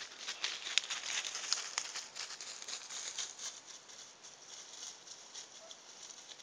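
Dry fallen leaves crackling and rustling under a small dog's paws as it moves over the forest floor. A quick, uneven run of crisp ticks, densest in the first few seconds, thinning out after that.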